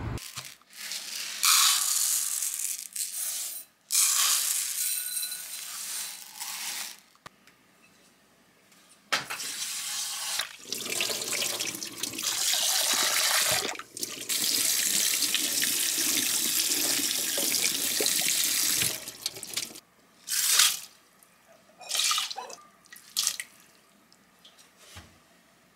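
Water from a kitchen tap running into a glass bowl of rice in a stainless steel sink, in several short spells and then one long steady run, as the rice is washed and rinsed. Near the end come a few short splashes as the wet rice is tipped into a rice cooker's inner pot.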